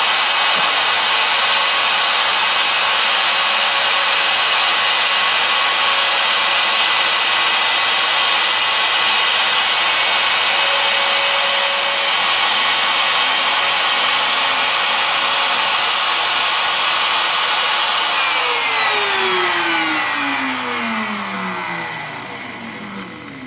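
Homebuilt CNC mill's router-type spindle motor running at speed, a loud steady whine with cutting noise as it mills metal plate under flood coolant. About 18 seconds in the motor is switched off, and its whine falls steadily in pitch as it spins down.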